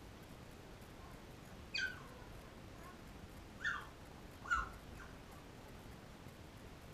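Newborn Labrador puppy giving three short, high-pitched squeaking whimpers, each dropping in pitch: one about two seconds in and two close together a little before the five-second mark.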